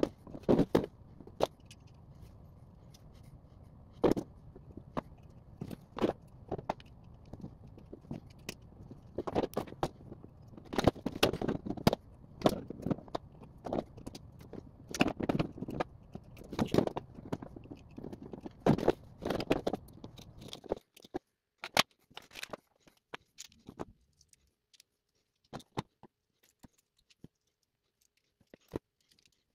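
Hands working with tools, wires and small plastic parts on a workbench: irregular clicks, clacks and scrapes over a low steady background hum. The hum stops about 21 seconds in, leaving only a few scattered clicks.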